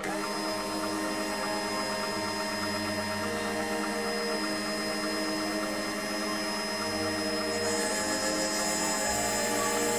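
Small rotary craft drill used as a tool post grinder, its motor whining steadily while the lathe turns. From about eight seconds in a high hiss joins it as the grinding stone takes a burr off the edge of the bore. Orchestral background music plays underneath.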